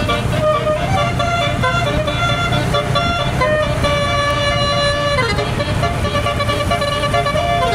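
A tour bus's 12-note 'telolet' musical air horn playing a tune of held notes that step from pitch to pitch, with one long note that slides down about two-thirds of the way through, over the low, steady running of the bus.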